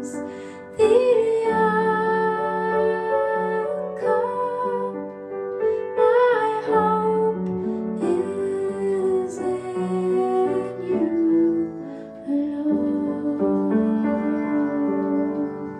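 A woman singing a slow, gentle song over piano accompaniment, with long held notes that waver in pitch.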